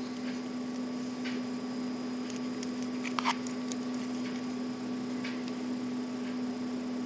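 A steady low hum with a few faint clicks and ticks of small plastic beads being handled and threaded onto a thin steel wire, the most distinct click about three seconds in.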